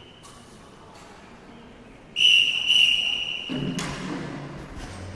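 A whistle blown once, a loud, steady, high single note about two seconds in that lasts about a second and a half, followed by a knock.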